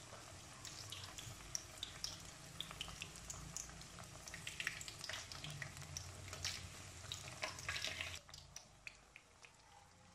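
Gram-flour-battered onion slices deep-frying in hot oil in an iron karahi: a steady sizzle full of small crackles and pops, as a slotted steel spoon turns the fritters over. The sizzle drops somewhat about eight seconds in.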